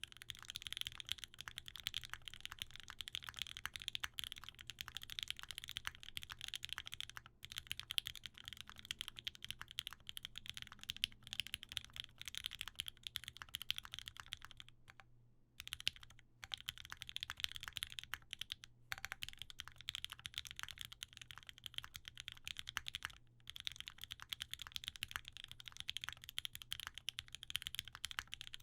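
Steady rapid typing on a Leaf65 mechanical keyboard with lubed OP Black switches, an FR4 plate, case foam and GMK ABS keycaps, a dense run of key clicks. It breaks off a few times, longest for about a second around halfway through.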